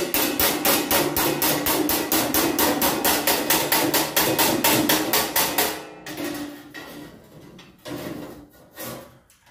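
Rapid hammer blows on a hand-held cold rolled sheet-steel panel, about six strikes a second with a ringing metallic tone, straightening out a dip in the bent panel. The fast hammering stops about six seconds in, followed by a few lighter taps.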